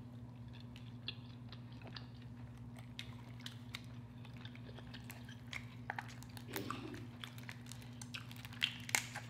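Close-miked chewing of seafood-boil food: wet mouth sounds with scattered small clicks. Near the end come a few sharper cracks as a king crab leg is broken apart by hand. A steady low hum runs underneath.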